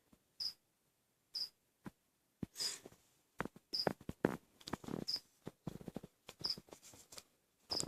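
A cricket chirping, one short high chirp about every second, over irregular scratching and tapping that gets busier in the second half.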